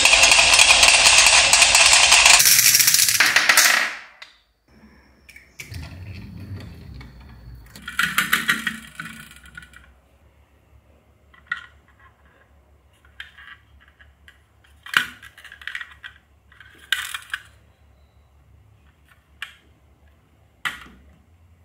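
Marbles rolling down a grooved wooden slope and clattering into a toy dump truck's bed, a loud dense rattle that dies away about four seconds in. After that, scattered soft clicks and knocks as a plastic toy bus is handled.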